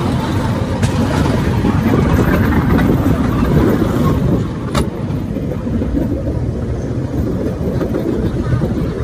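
A vehicle engine running, a steady low rumble with moving-vehicle noise, and a sharp click about halfway through.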